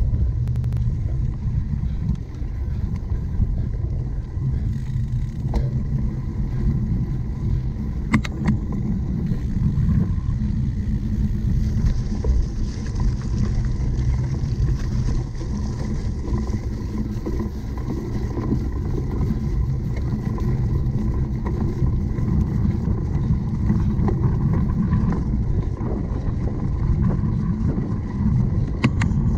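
Steady low rumble of wind buffeting the microphone of a camera carried through a cyclocross race, with a few sharp clicks, about eight seconds in and near the end.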